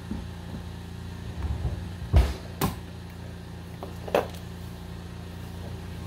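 Wire cutters snapping through 12-gauge copper electrical wire, with a few sharp clicks and knocks as the tool works and is set down, over a steady low mechanical hum.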